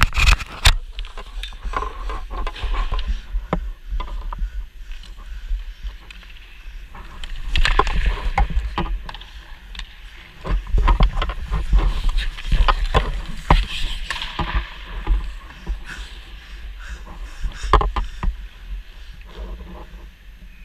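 Ice hockey play heard from a goalie's camera: skate blades scraping and carving the ice in hissy stretches, with many sharp clacks and knocks of stick, puck and goalie gear. A low rumble of handling noise runs underneath.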